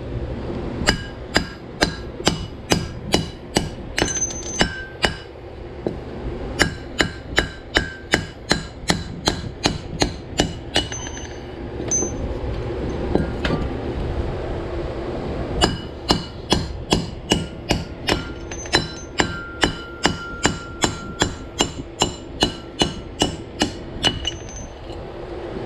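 Hammer striking steel over and over, about three blows a second with short pauses, each blow leaving a metallic ring. It is driving a broken part out of the car's rear driveline.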